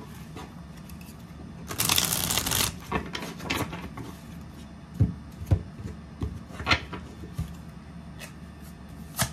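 A deck of tarot cards being shuffled by hand, with one dense rush of riffling cards about two seconds in. Scattered light knocks and ticks follow as the deck is handled over a wooden table.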